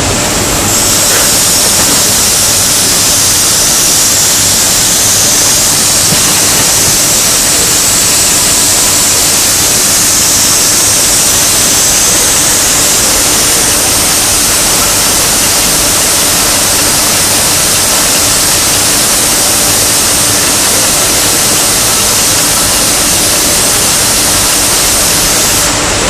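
Row of atomizing spray nozzles hissing steadily as they mist the loaves on the conveyor before the oven, over the steady running of the production line. The hiss starts about a second in and stops near the end.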